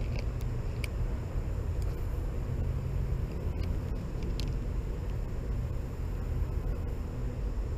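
A steady low rumble, with a few faint light clicks from a spinning rod and reel being handled.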